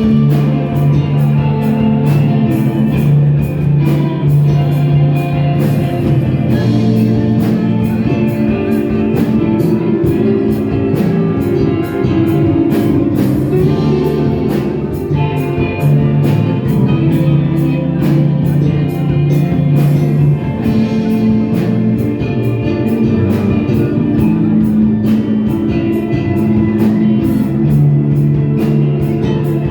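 Live rock band playing: sustained guitar chords over a steady drum-kit beat.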